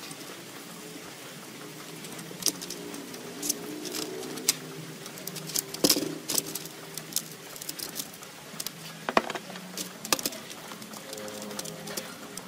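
A brush scrubbing small-engine parts (crankshaft, gears) in a metal tray of cleaning liquid, with scattered sharp clicks and knocks of metal parts against the tray; the loudest knocks come about six and nine seconds in. A low wavering tone hums underneath.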